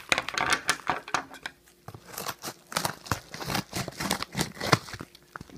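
Kraft-paper padded mailer being handled and opened, crinkling and tearing in quick irregular crackles.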